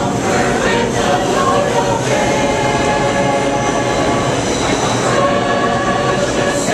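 A choir singing in held, sustained notes over the steady rumble of a subway train in the station.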